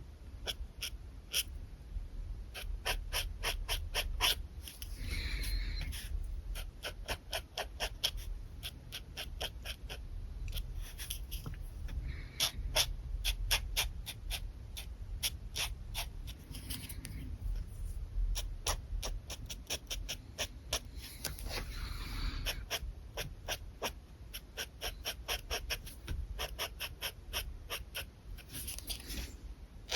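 Pen nib scratching on paper in quick, short strokes, several ticks a second, broken now and then by a few longer scratchy strokes.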